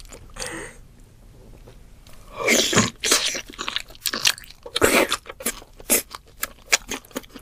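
Close-miked mukbang eating sounds: a woman biting into and chewing a thick octopus tentacle, a quick run of crunchy bites and chews starting about two seconds in.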